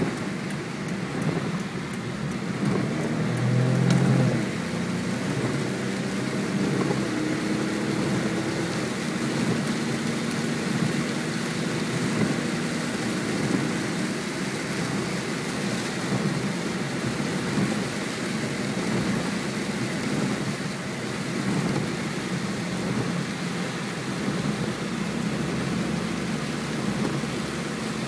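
Rain hitting a moving car, with tyres hissing on the wet road and the engine running, heard from inside the car. There is a louder low rumble about four seconds in.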